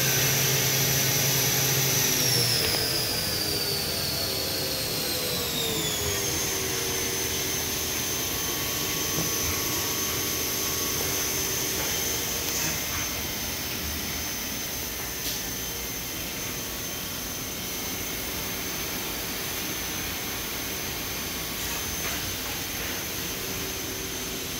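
Vertical machining center's direct-drive spindle running at about 8,000 RPM with a high, steady whine and a low hum. About two seconds in, the whine glides down in pitch over some four seconds as the spindle slows, then holds steady at the lower pitch.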